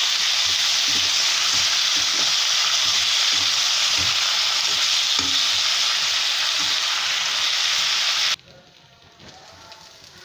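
Potato slices sizzling in hot oil in a pan while a spatula stirs them, with soft knocks of the spatula against the pan. The sizzle cuts off suddenly about eight seconds in, leaving a much quieter stretch.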